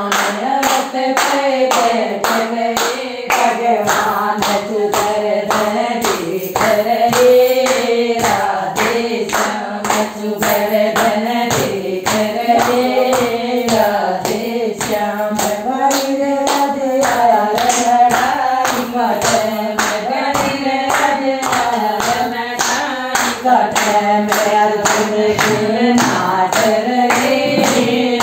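A group of women singing a Krishna bhajan together to steady rhythmic hand clapping, about two to three claps a second.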